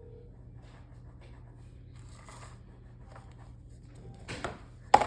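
Faint rustling of painting at a table over a steady low hum, then a knock a little after four seconds in and a sharper, louder knock just before the end, like a brush or cup set down on the table.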